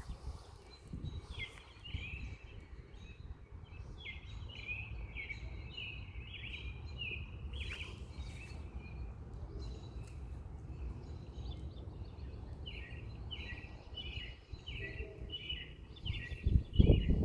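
Birds chirping in quick runs of short, falling notes over a steady low background noise. A few loud low thumps come near the end.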